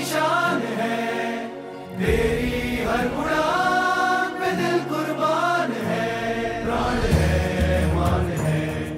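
Background music: a Hindi song with chant-like sung vocals over a steady low drone. A heavy low beat comes in about seven seconds in.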